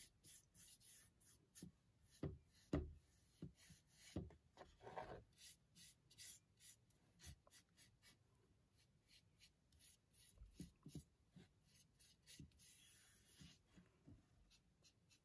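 Faint scratchy strokes of a paintbrush dragging paint across the edge and face of a stretched canvas, with a few soft knocks, the loudest about three seconds in.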